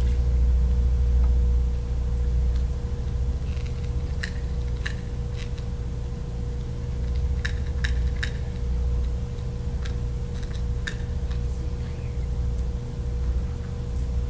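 Steady low electrical hum, with a thin steady tone above it, and a scattering of small sharp clicks and taps, most of them in the middle of the stretch.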